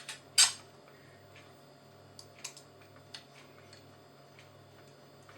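Small hard clicks and taps from chainsaw parts being handled and fitted: one sharp click about half a second in, then a few scattered light ticks, over a faint steady low hum.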